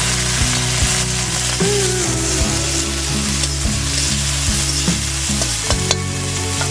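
Chopped tomatoes going into hot oil with fried onions, sizzling strongly in the pan as they are stirred, with regular light knocks of the spatula.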